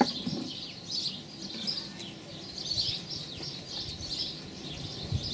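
Small birds chirping and singing repeatedly in the background, with one sharp knock right at the start from a knife meeting a wooden cutting board.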